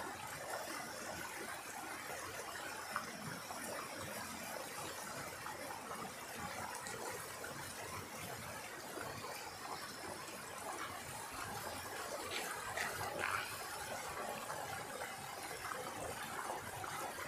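Mountain stream rushing over rocks in small cascades, a steady wash of water. A few brief, sharper sounds stand out about twelve to thirteen seconds in.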